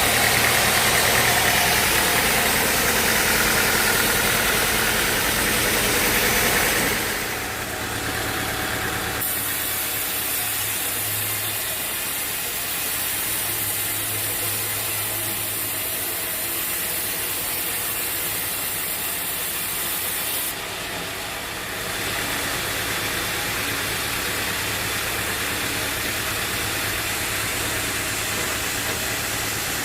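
Sawmill machinery running steadily, louder and harsher for the first several seconds, then changing abruptly a few times.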